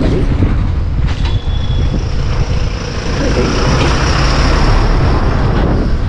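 Wind buffeting the microphone and road rumble while riding on a moving two-wheeler; the rushing hiss swells around the middle and eases near the end.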